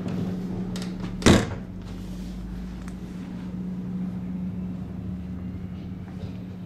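Steady hum of the RhB Allegra ABe 8/12 electric multiple unit's onboard equipment inside the car, with one sharp knock about a second in.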